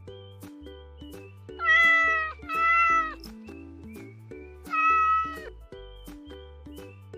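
An animal calling three times: two calls back to back, then a third about two seconds later, each dipping in pitch at the end. Light background music with a steady beat plays throughout.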